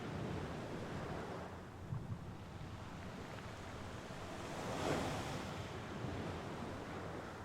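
Sea waves washing onto the shore, with one wave breaking and surging loudest about five seconds in.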